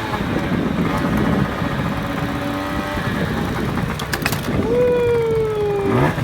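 Small two-stroke 50cc scooter engines running on the road under wind rumble, with a few sharp clicks about four seconds in; near the end an engine's pitch falls steadily as it slows or passes.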